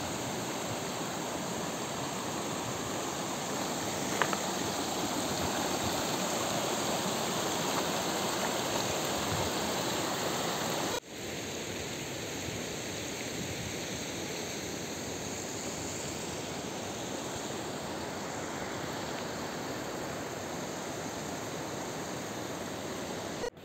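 A steady outdoor rushing noise, with a single sharp click about four seconds in. About eleven seconds in it breaks off abruptly and the same kind of rushing resumes, a little quieter.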